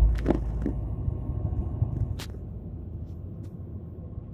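Low rumble on board a moving boat, loudest at the start and easing off after about two seconds. Sharp knocks come from the phone being handled against the railing: a few in the first second and one about two seconds in.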